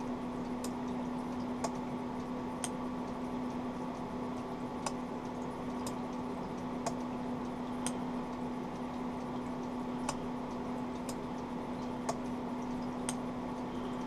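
Arduino-driven two-channel relay module clicking about once a second, over a steady hum. The relays switch on their own, whether or not anything is in front of the ultrasonic sensor, which points to a fault in the code or wiring.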